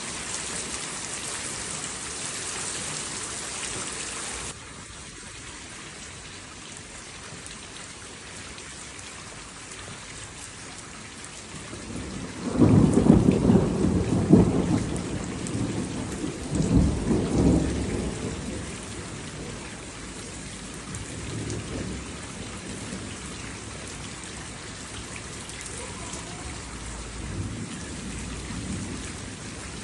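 Steady rain falling, its hiss dropping abruptly about four seconds in. About twelve seconds in, thunder breaks into a long low rumble that swells again a few seconds later, and fainter rolls of thunder follow near the end.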